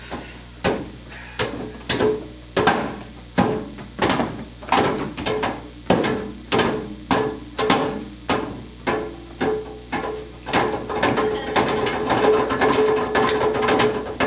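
Music with a steady percussive beat: sharp knocking hits about one and a half a second under a held note. It grows fuller and busier about ten seconds in.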